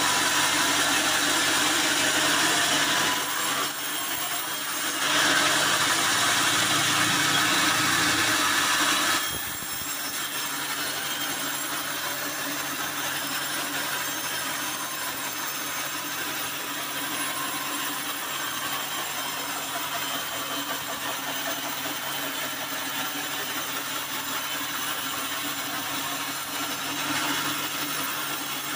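Band sawmill blade cutting through a hard acacia wood slab for about the first nine seconds, with a short dip about three seconds in. The cut then ends and the mill runs on steadily with no load, quieter.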